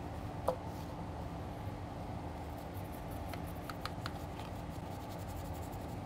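Steady low hum and hiss of bench equipment, with a short falling squeak about half a second in and a few light clicks around the middle, as of small tools handled at a repair bench.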